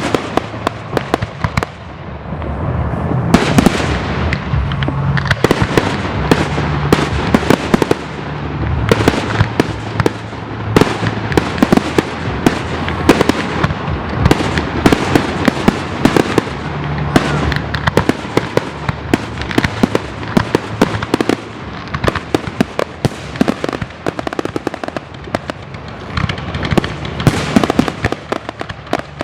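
Fireworks display: aerial shells bursting in rapid, overlapping succession, a dense run of sharp bangs and crackles with no pause.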